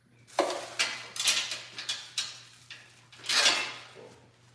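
Loose metal parts clattering and being shuffled on top of a steel shipping crate: several sharp clanks, then a longer, louder rattling rustle about three and a half seconds in.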